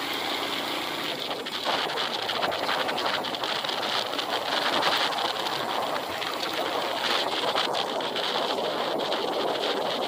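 Wind rushing over the microphone with road noise from a moving open vehicle: a steady rushing noise with many small crackles from the wind gusting.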